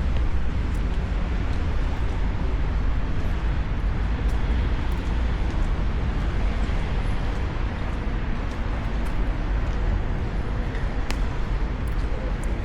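Steady road traffic noise with a deep, continuous rumble.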